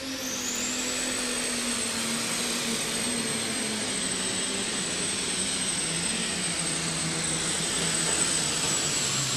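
Multi-turbocharged super stock diesel pulling tractor under full load on the sled. A high turbo whistle climbs in the first second and then holds steady over the engine note, which slowly sags lower through the run as the tractor runs out of horsepower.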